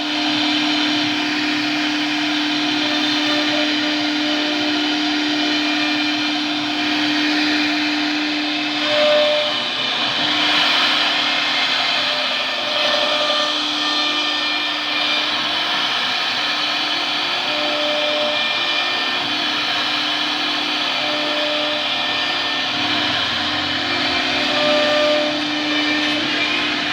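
CNC machine running: a steady motor whine with a small rise and fall in pitch that repeats every second or so.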